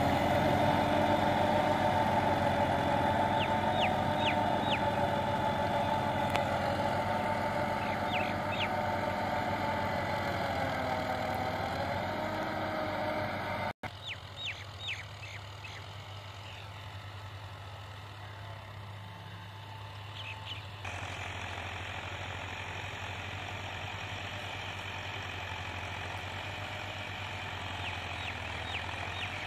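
Massey Ferguson 385 tractor's four-cylinder diesel engine running steadily under load while pulling a tine cultivator through dry soil, slowly fading as it moves away. About halfway through it drops sharply to a quieter, more distant hum. A few short high chirps come in small clusters.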